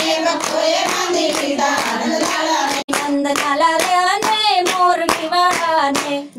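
A group of women singing a Gujarati bhajan together, keeping time with rhythmic hand clapping. The sound breaks off for an instant about three seconds in.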